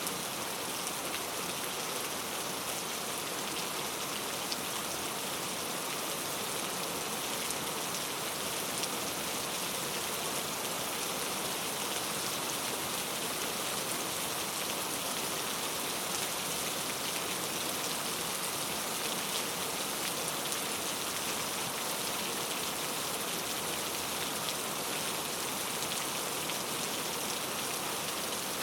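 Steady rain falling on foliage in a rainforest, an even wash of pattering drops with scattered sharper drips.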